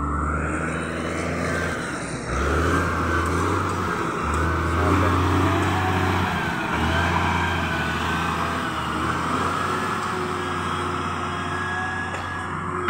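SDLG wheel loader's diesel engine running as the machine works the ground, a low drone that swells and eases every few seconds, with a wavering high whine above it.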